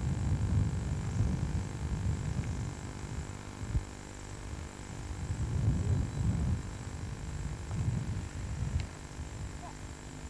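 Wind buffeting the camcorder microphone in irregular low gusts, over a faint steady electrical hum.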